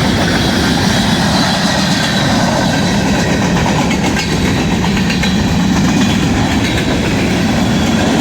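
BNSF local freight train rolling past close by: a steady, loud rumble of steel wheels on the rails with a clickety-clack.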